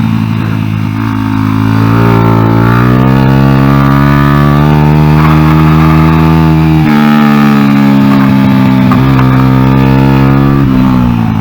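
Honda XR100 single-cylinder four-stroke engine in a small racing minibike, heard onboard while riding a track. The revs climb steadily for several seconds, change sharply about seven seconds in, and fall away near the end.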